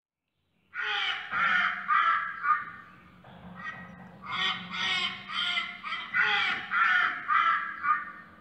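Ducks quacking: a run of about a dozen harsh, nasal calls, starting a moment in and coming in quick groups.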